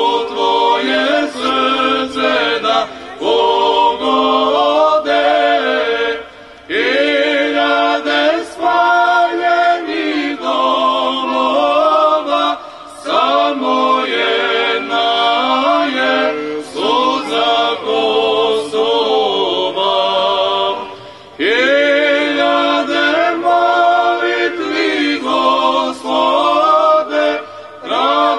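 A small mixed choir of men's and women's voices singing a church hymn a cappella into microphones, in long phrases with short pauses for breath between them.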